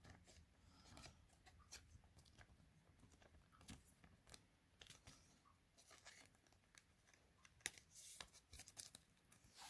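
Faint rustling and light clicks of baseball trading cards being handled and flipped through one by one.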